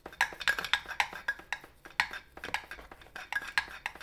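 Soldering iron tip scrubbed back and forth in a metal-wool tip cleaner: rapid, uneven scratching and metallic clinking. The cheap standard tip is being scoured clean of black residue from melting plastic.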